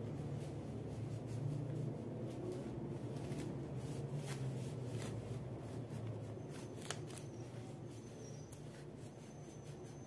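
A wax crayon scribbling on a sheet of paper on a table, in irregular scratchy strokes, over a steady low hum.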